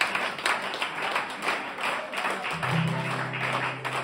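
Acoustic guitars being strummed and picked with quick percussive taps, loose and without a steady song. A low note is held through the second half.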